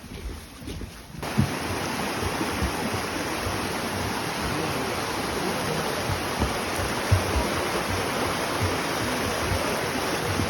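Rushing stream water, a steady loud wash that starts suddenly about a second in, with scattered soft low thumps over it.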